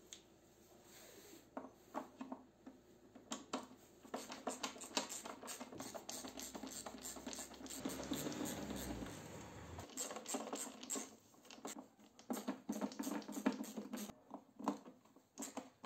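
Faint, irregular clicks and scratches of a screwdriver turning out the screws of the plastic bulb holder on a VW Crafter tail light, with the plastic housing being handled.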